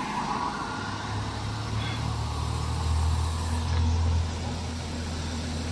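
Cars driving past on a road: a low engine hum builds about a second in, is loudest around three to four seconds, then eases off over a steady road hiss.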